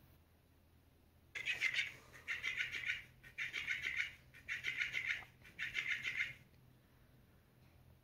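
Robotic flopping-fish cat toy going off in five short buzzing, rattling bursts with brief pauses between them, as its motor flaps the tail.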